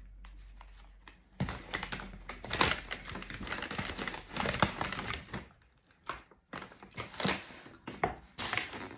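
Brown paper takeout bag rustling and crinkling as a hand rummages inside it. The crackling starts about a second and a half in, comes in uneven spells, and briefly lulls about six seconds in.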